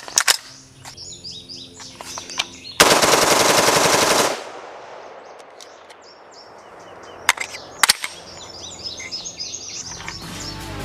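Vietnam-era Colt select-fire rifle firing on full auto. A few sharp shots come first, then a burst lasting about a second and a half some three seconds in, then two more shots near the end. Birds chirp in the pauses.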